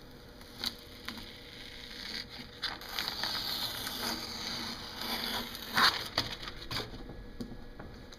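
Masking tape being peeled off a surface. There are a few light clicks, then about three seconds in a crackling, tearing sound begins and lasts about four seconds, with one sharp rip near the end.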